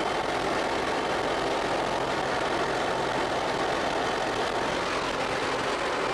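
Steady drone of a light aircraft's engine and propeller heard from inside the cabin in flight.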